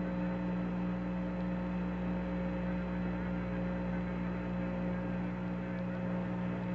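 Steady low electrical hum with a faint hiss on the Apollo 11 air-to-ground radio channel, an open line between transmissions.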